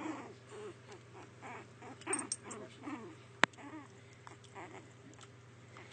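A puppy and its mother dog play-fighting, with a string of short yips and whines. A single sharp click comes about three and a half seconds in.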